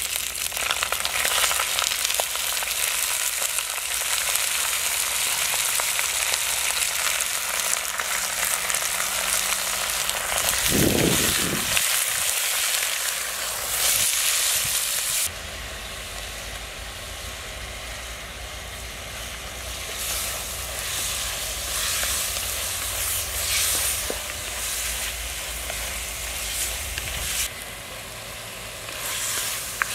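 Raw chicken pieces sizzling in hot oil in a clay pot over a wood fire, turned now and then with a wooden spoon. The sizzle is loudest for the first fifteen seconds or so, then drops and settles to a softer frying hiss. There is a brief low rumble about eleven seconds in.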